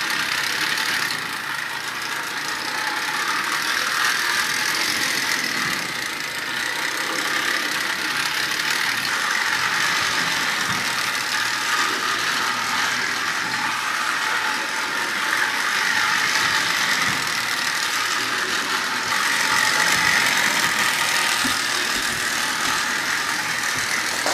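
Lionel 58 rotary snowplow running on three-rail O gauge track: a steady mechanical whir and gear chatter from the toy's electric motor, with a few faint clicks.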